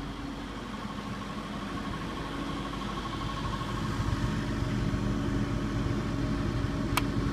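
Mobile crane's engine running steadily, slowly growing louder, with one sharp click near the end.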